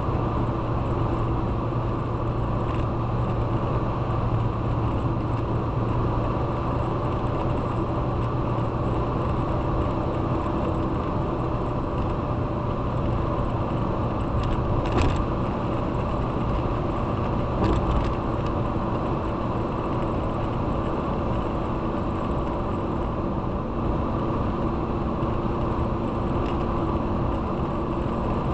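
Car driving along a road: a steady mix of engine hum and road noise, with two brief clicks about halfway through.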